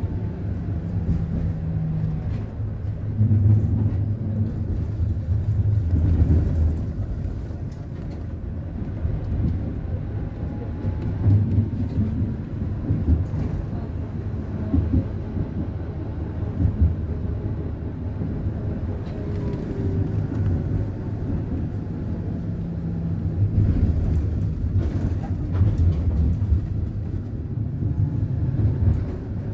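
Konstal 105Na tram running, heard from inside the car: a steady low rumble of wheels on the rails, with the faint whine of the gear transmission rising and falling in pitch as speed changes. A few sharp clicks come late on.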